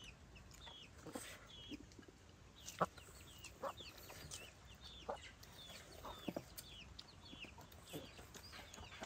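Faint chickens calling: a run of short, high calls, about two a second, with a few soft clicks of chopsticks and bowls.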